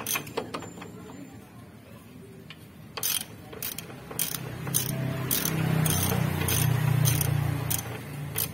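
Socket ratchet clicking on its back-strokes, about twice a second from about three seconds in, as the bolts of a worn lower ball joint on a Mitsubishi L300 are undone, with a spanner holding the nut. A low droning sound swells up in the second half.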